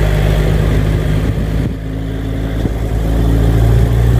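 Vehicle engine running, heard from on board; it eases off briefly near the middle, then picks up again and rises slightly in pitch toward the end.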